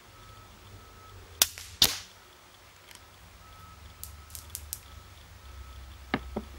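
Daystate Red Wolf HP PCP air rifle firing a shot: two sharp cracks less than half a second apart. A few seconds later come light metallic clicks as the action is worked to load the next pellet. A faint intermittent beeping runs in the background.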